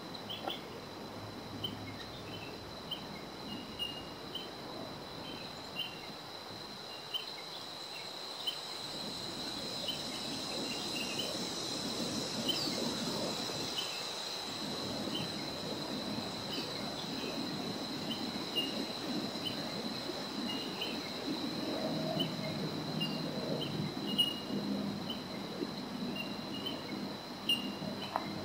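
Small birds calling with short, high pinging pips repeated every second or so, over a steady high-pitched insect trill. Wind noise builds from about a third of the way in.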